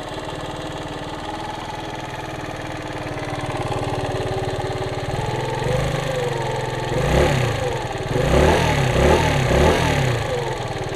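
Lexmoto Echo 50cc four-stroke scooter engine, warmed up, idling with a deep tone for about five seconds, then blipped several times, each rev rising and falling in pitch.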